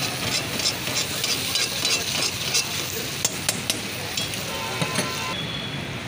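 Chicken karahi sizzling in a karahi wok while a metal ladle stirs and scrapes it in quick strokes, about three a second. There are a couple of sharp clinks partway through, and the sizzle eases near the end.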